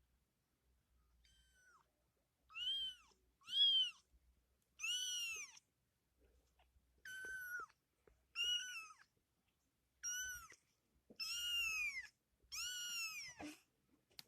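Kitten meowing over and over: high-pitched calls that rise and fall, about one a second, the last few longer and louder.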